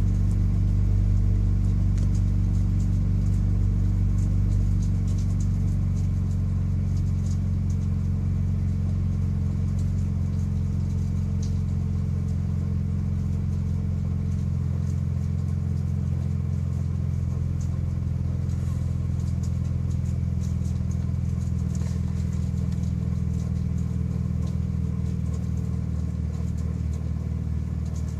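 Car engine idling steadily with a low hum, with faint, scattered light rattles and ticks over it: the rattle noises of a car with a six-speed manual transmission.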